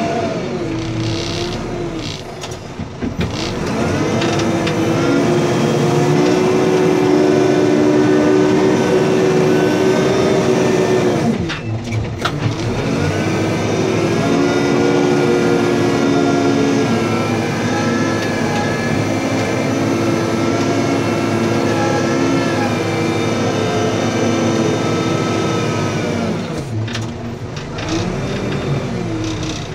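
Backhoe loader's diesel engine running at high revs while the machine works. The pitch steps up about four seconds in and holds, drops briefly around twelve seconds, then rises again, with a fainter higher whine over it for a stretch in the second half, and falls off again near the end.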